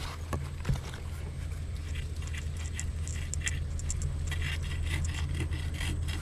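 Scattered scraping and rattling clicks from probing a deep crab burrow, with a sharp knock about a second in, over a steady low rumble.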